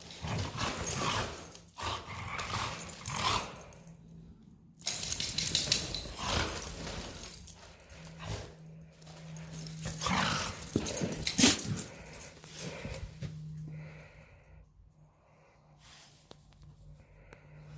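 Heeler dogs playing and scuffling, in loud bursts of a few seconds separated by quieter gaps, over a low steady hum.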